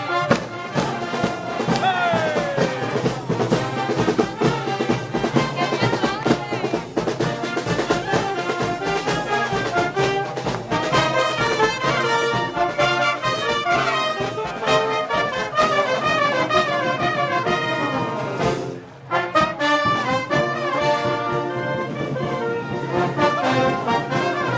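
Brass band playing Moros y Cristianos festival march music: trumpets and trombones over a steady drum beat, with a brief break about nineteen seconds in.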